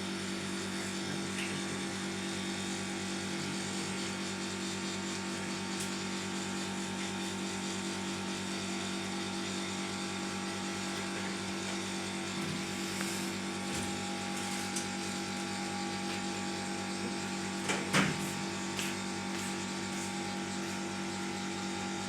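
A steady machine hum holding a constant pitch, with a couple of sharp knocks near the end.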